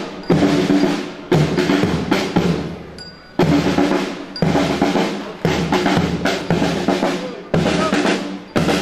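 Parade band music led by drums: snare-drum rolls broken by heavy strikes about once a second, with held band chords underneath.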